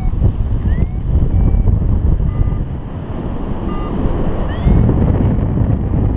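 Wind rushing over the microphone during paraglider flight, with a few short electronic beeps and a couple of rising chirps from the flight variometer. Variometer beeps like these signal that the glider is climbing.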